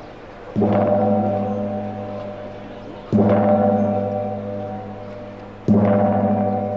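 Large ceremonial gong struck three times, about two and a half seconds apart. Each stroke rings out with a deep hum that slowly dies away until the next one.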